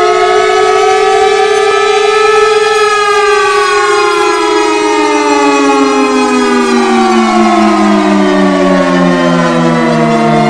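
Chrysler Bell Victory air-raid siren, an engine-driven compressed-air siren with a rotary chopper and six horns, wailing with several tones at once. It holds its pitch for about three seconds, then slides steadily down, the lowest notes fluttering in pulses near the end as it winds down.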